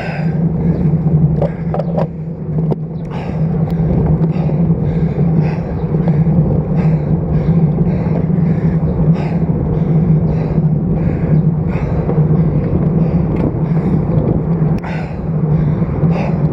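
Road bicycle riding noise from a camera mounted on the stem: a steady low hum of wind and tyres on the road, with a faint rhythmic puff about every 0.7 seconds.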